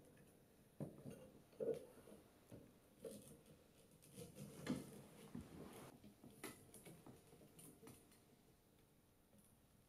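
Faint clicks and light knocks of a racquet-stringing machine's metal clamps and the string being handled, a handful of separate taps that die away near the end.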